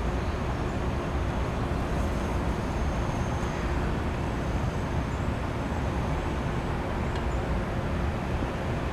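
Oxy-acetylene welding torch flame burning with a steady hiss.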